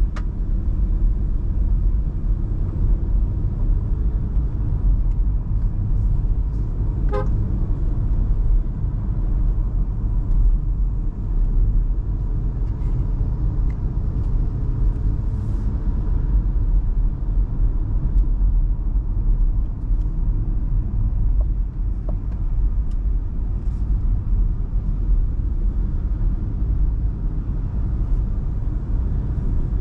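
Steady low rumble of the MG Hector Plus on the move: tyre and road noise over its 1.5-litre turbo petrol engine, with a faint steady whine. A single small tick comes about seven seconds in.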